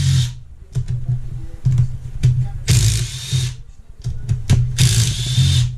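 Background music with drums and a steady bass line; a bright cymbal-like swell comes back about every two seconds.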